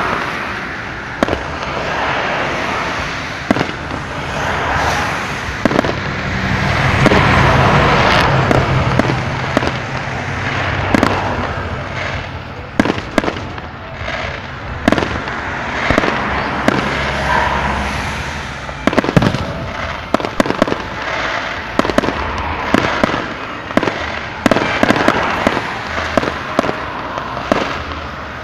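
Fireworks display: aerial shells launching and bursting in a steady run of sharp bangs and crackles over a continuous rushing hiss, loudest around seven to nine seconds in.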